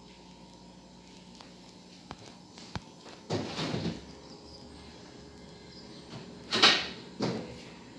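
Refrigerator door being opened and things handled inside. There are a couple of faint clicks, then several short, loud rushes of noise, the loudest about three-quarters of the way through.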